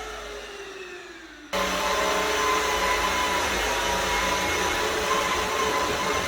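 Vmai V8 Pro cordless wet-dry vacuum cleaner's motor winding down with a falling whine. About a second and a half in, it starts abruptly and runs steadily with a high whine.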